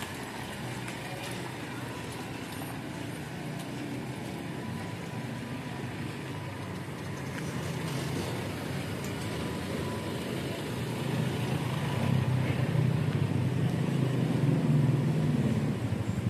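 Street ambience with a motor vehicle engine running, its low hum growing louder over the last few seconds.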